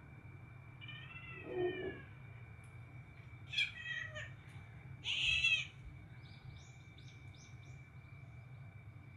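Domestic cat meowing three times, about one, three and a half and five seconds in, each call bending in pitch, followed by a few faint short high chirps. A faint steady high tone runs underneath.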